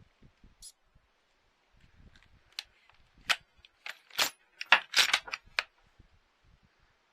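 A quick run of sharp metallic clicks and clinks, like small metal objects being handled, bunched together about halfway in.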